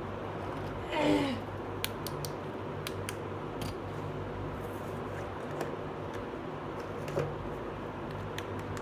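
Small plastic toy pieces being handled and set down, giving scattered light clicks and taps, over a steady low hum. About a second in, a short louder sound that falls in pitch.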